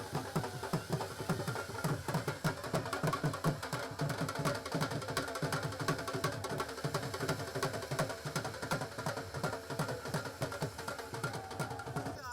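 Music with fast, steady drumming, about four to five beats a second, over pitched instruments; it cuts off suddenly near the end.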